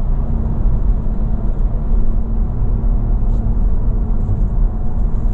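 Steady road and engine rumble heard from inside a vehicle driving along a motorway.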